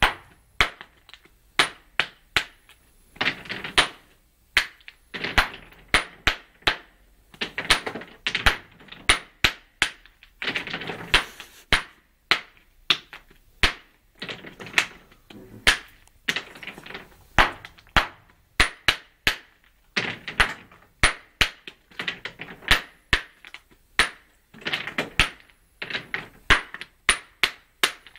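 Cobblestone-cutting hammer striking white limestone blocks by hand, splitting them into paving cubes: a long series of sharp clacks, roughly one or two a second in uneven runs.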